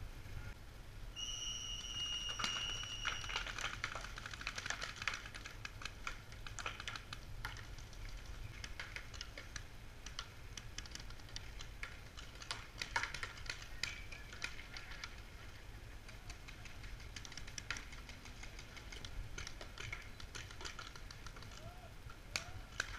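Paintball markers firing during a game: light, sharp pops at irregular intervals, sometimes in quick strings. A steady high whistle-like tone sounds for about two seconds near the start.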